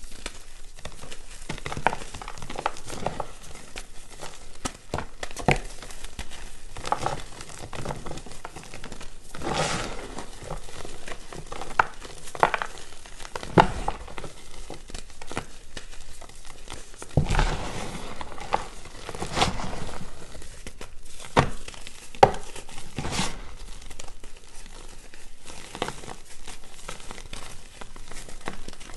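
Reformed gym chalk discs being crushed, a continuous run of irregular dry crunches and crackles, with a few louder crunches along the way.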